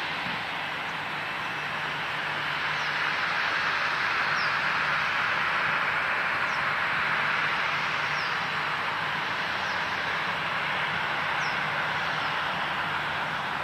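Jet airliner engine noise, a steady rushing sound with a faint low hum under it, swelling in the middle and easing off again. Short high bird chirps come every second or two.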